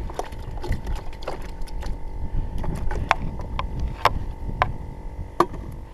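Scattered sharp clicks and taps, unevenly spaced, from fishing gear being handled in a canoe while rebaiting, over a low rumble of wind and handling.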